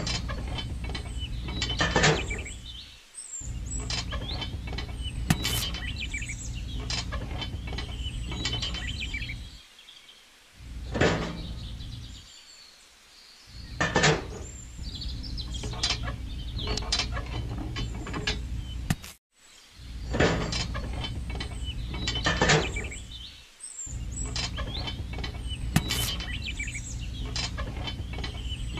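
Small clicks and clinks of miniature tractor parts as the toy implements are handled and hitched, over a steady low hum that stops and starts several times, with bird chirps mixed in.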